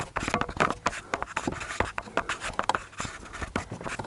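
Fingers working at the hard plastic trim under a Nissan Leaf's glove box: a busy, irregular run of small scrapes, rubs and clicks of skin and nails against plastic.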